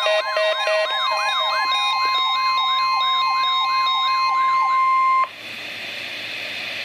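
NOAA Weather Radio 1050 Hz warning alarm tone, steady, with weather alert radios sounding their alarms over it: a rise-and-fall whoop repeating about three times a second and beeping that stops within the first two seconds. The alarm tone cuts off suddenly about five seconds in, leaving steady radio hiss.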